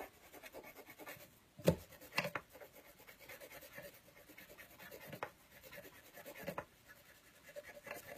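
Watercolour pencil scribbling on paper while colouring in, a faint steady scratching, with a few light knocks.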